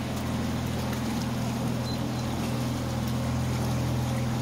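Canal day boat's motor running steadily under way, a low even hum.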